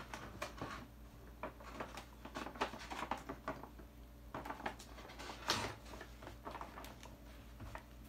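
Hands handling plastic toiletry bottles, a shave cream can and a blister-packed razor on a tray: irregular clicks, taps and plastic rustles, the loudest a short rustle just past the middle.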